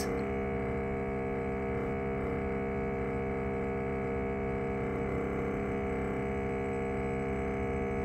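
Compressor of a Premium Levella mini split outdoor unit running with a steady hum of many pitches at once. This is the sound of a compressor about to fail.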